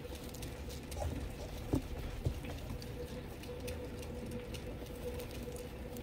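A flock of domestic pigeons pecking at scattered seed on a hard floor: a steady patter of many small, quick clicks, with two sharper knocks about two seconds in.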